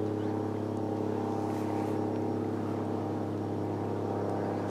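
Steady low mechanical hum with an even, unchanging pitch.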